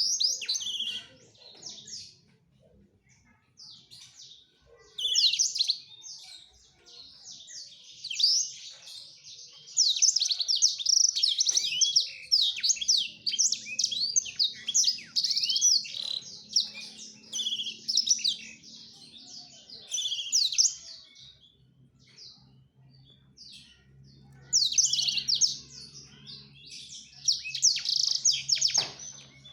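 Male black-throated canary singing its courtship song: fast twittering phrases in runs separated by short pauses. The song is fullest through the middle and again near the end.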